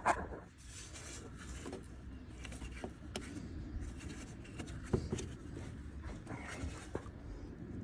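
Faint scattered clicks and light knocks of hands and tools working on parts in a car's engine bay, over a low steady hum, with a sharper knock about five seconds in.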